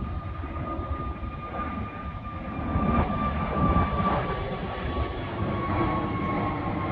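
Airbus A320neo turbofan engines at climb power just after takeoff: a rumble with a high whine that slowly drops in pitch as the jet passes overhead, getting louder about three seconds in.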